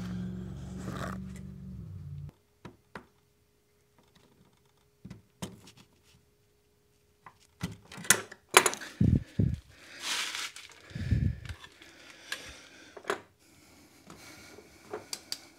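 Hand-handling noises of a rubber umbrella valve being pushed out of its hole in a Tesla Model S battery pack housing from behind: scattered small clicks at first, then a cluster of louder scraping and rubbing sounds in the second half as the valve is worked loose.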